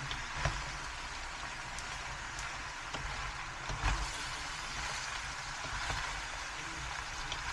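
Steady hissing noise with a low rumble underneath and a few soft knocks, about three in all.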